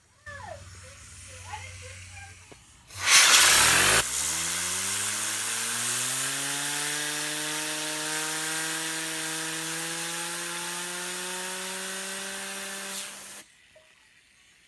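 Fidget spinner whirring at high speed. Its pitch rises as it spins up, then holds steady under a loud hissing rush, and both cut off suddenly near the end.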